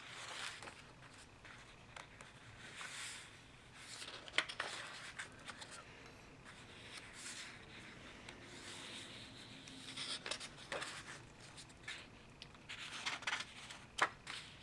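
Pages of a large hardcover art book being turned by hand: soft paper swishes and rubbing, with small clicks of the paper, several times over.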